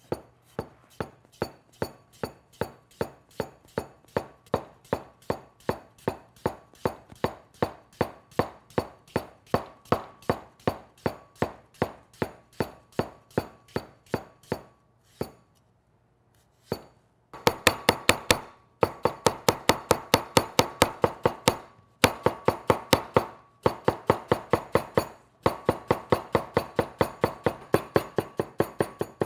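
Chinese cleaver cutting peeled potatoes on a wooden cutting board: even knocks of the blade on the board about two to three a second while slicing. After a short pause about halfway through, louder and faster runs of chopping as the slices are cut into thin strips.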